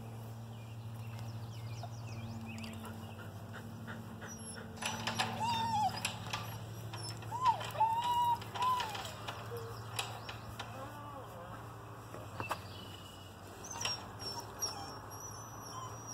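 Central Asian Shepherd puppy giving several short, high whining squeaks, the loudest of them as it yawns wide, over a steady low hum. Faint bird chirps near the end.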